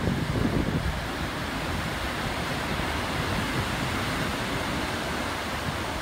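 Storm surf breaking and washing up a rocky beach: a steady rush of water, with wind buffeting the microphone in the first second.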